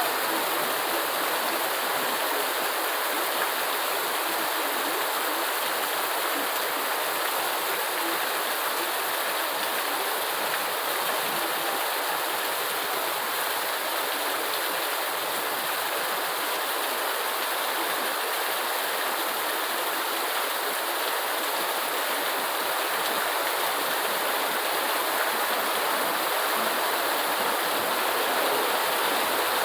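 Steady heavy rain: a continuous, even rushing hiss with no separate drops or thunder standing out.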